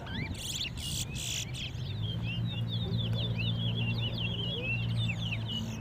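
Towa towa (chestnut-bellied seed finch) singing a rapid, chirping song of quick high notes, as in a bird-racing song match. A low steady hum comes in about two seconds in.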